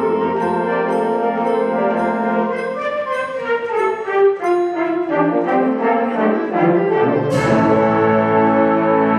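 Concert band of woodwinds, brass and percussion playing sustained chords, with a sudden crash about seven seconds in, after which the band holds a full chord.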